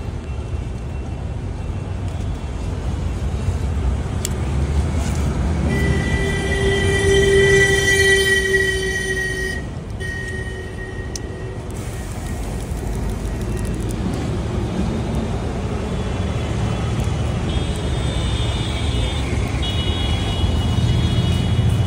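Road traffic running steadily, with a long horn blast of a few seconds starting about six seconds in and a higher-pitched tone near the end.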